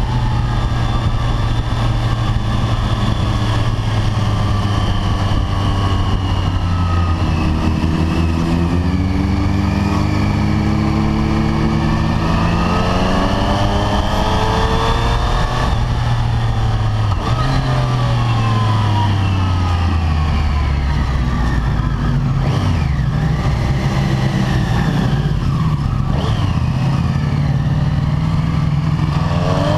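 Triumph Street Triple 765 RS inline-three motorcycle engine heard from on board at low speed, its pitch rising slowly with the throttle and then falling away as the bike slows, with a couple of quick blips near the end.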